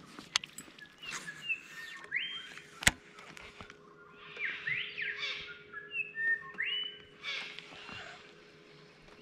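Birds calling in a series of whistled phrases, the notes sliding up and down with harsher, scratchy parts between them, repeated several times. A single sharp click cuts in about three seconds in.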